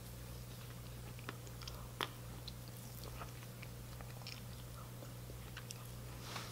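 Faint eating sounds: ice cream being spooned from a paper pint and chewed, with a few soft clicks and smacks, over a steady low hum.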